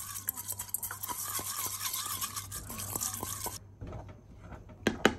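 Raw rice being washed by hand in water in a pot, the grains scrubbing and swishing with many small gritty clicks. It cuts off sharply, and near the end a spoon stirring rice in a saucepan clinks against the pan four or five times.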